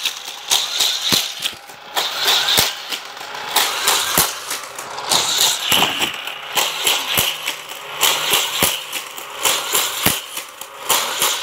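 Battery-powered Hot Wheels track booster running, its spinning wheels launching die-cast cars around the plastic track, with a steady whirring rattle that rises and falls about once a second and many sharp clicks and clatters of the cars on the track.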